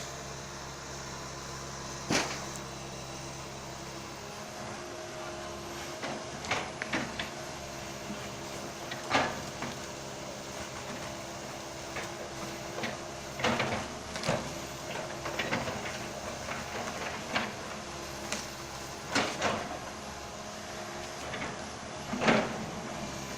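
Komatsu excavator's diesel engine running steadily, with irregular sharp cracks and knocks every second or few seconds as it pushes over trees; the loudest cracks come about two seconds in, about nine seconds in and near the end.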